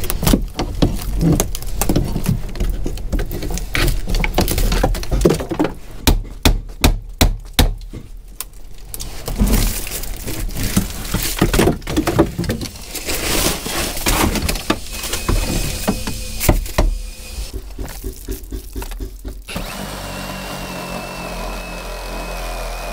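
Hand tools striking and prying at a wooden boat frame to work stubborn copper nails loose: a long run of sharp knocks and cracks of wood, with a quick string of hard blows in the middle. Near the end a cordless power tool starts and runs steadily with a high whine.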